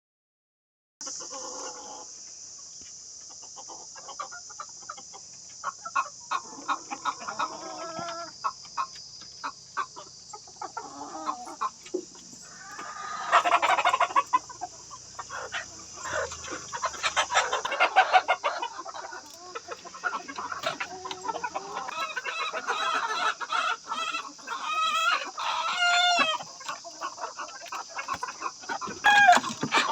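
Country chickens clucking and calling, with louder bouts of squawking about 13 and 17 seconds in. A steady high-pitched hiss runs underneath.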